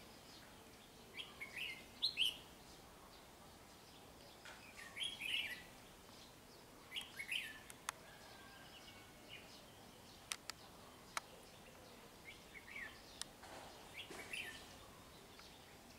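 Red-whiskered bulbul calling in short, chattering phrases, repeated at irregular gaps of a second or more. A few sharp clicks come around the middle.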